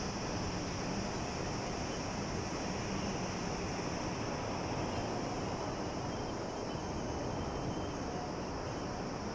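Sea waves breaking and washing in a steady, unbroken rush of noise, with a constant high hiss over it.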